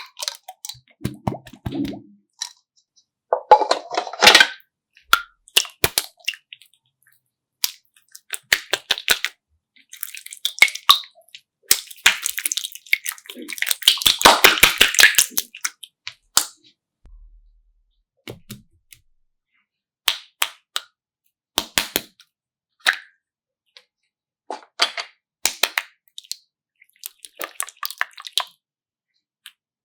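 Irregular bursts of sharp clicks, pops and crackles, with short silent gaps between them and two longer, denser crackling stretches, about four seconds in and again in the middle.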